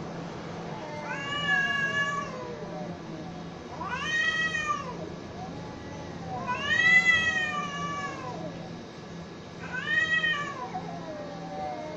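Cats in a face-off yowling: four loud, drawn-out caterwauls that rise and fall in pitch, with lower, wavering moans between them.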